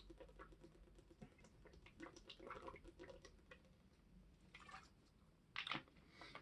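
Faint typing on a custom mechanical keyboard with lubed Gateron Milky Yellow linear switches: soft, irregular key clacks, with two louder ones near the end.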